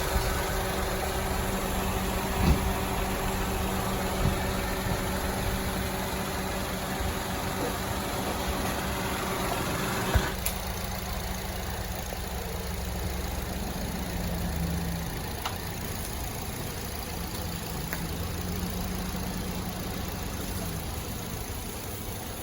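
A Toyota Passo's engine idling steadily with the A/C system running. About halfway through there is a click, after which the hum is a little quieter.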